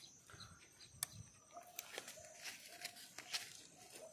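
Quiet outdoor ambience: faint rustling with a few light clicks, and a bird in the background repeating a short note about every half second.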